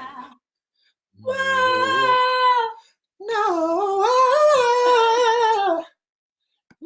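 A man singing two short wordless phrases in a high voice, unaccompanied: first a single note held steady for about a second and a half, then after a short pause a longer phrase that wavers up and down in pitch.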